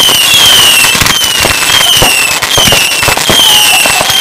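Daisy-chained fireworks going off in rapid succession: a run of piercing whistles, about two a second, each dropping slightly in pitch, over a dense string of sharp cracks and bangs.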